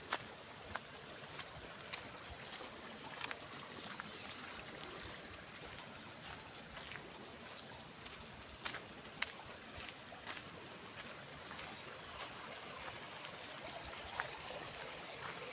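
Faint, steady outdoor background hiss, with scattered light clicks and ticks at irregular intervals.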